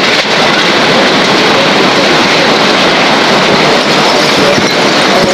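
Hurricane-force wind blowing loud and steady, a dense unbroken rush with driving rain.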